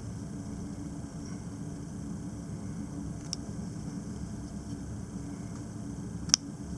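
Steady low hum in the room, with small clicks from handling the plastic printer pickup roller as a new rubber tire is worked onto it: a faint click about three seconds in and a sharp one near the end.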